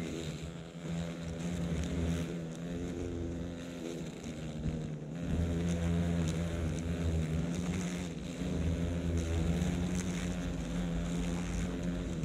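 Japanese giant hornets buzzing up close, a low droning wingbeat hum that swells and fades as the hornets beat their wings while stuck on an adhesive trap sheet.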